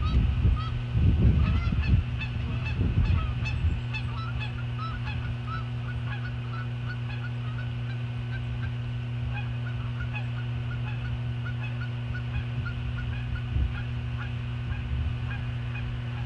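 Eagles giving a run of short, high chirping alarm calls, thinning out after about ten seconds, over a steady low electrical hum. Loud low rumbling bursts sound in the first four seconds.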